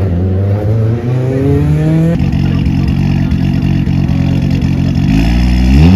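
Rally car engine accelerating hard, pitch climbing, with a gear change about two seconds in. It then holds a steady note before the revs rise steeply again near the end.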